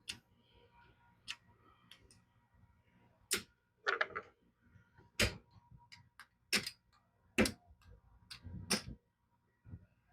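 Casino chips clicking as they are counted out and stacked, in sharp separate clacks about once a second.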